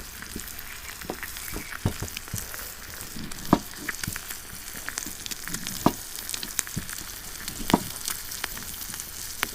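Salo and an egg frying in a pan, with a steady sizzle. A few sharp clicks stand out, about four in all, one to two seconds apart.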